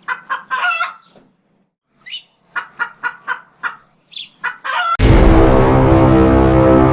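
Short, clucking fowl calls repeated in quick bunches, then loud music starts abruptly about five seconds in and carries on.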